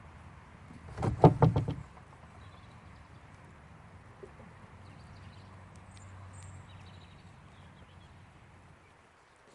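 A farm animal gives one short, loud call about a second in, pulsing rapidly for under a second.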